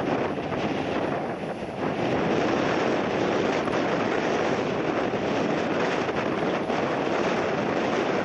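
Jet airliner on its landing approach, its engines making a steady rushing noise, with strong wind buffeting the microphone.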